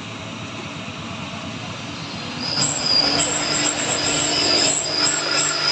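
Low background noise, then about two and a half seconds in, a high-pitched squeal that breaks off and restarts, over a steady engine tone. It is a Hino truck's rear tyres spinning on a slippery climb, losing grip until they smoke.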